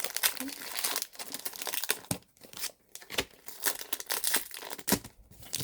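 Pokémon card booster pack wrapper crinkling and tearing as it is pulled open, an irregular crackling with brief pauses.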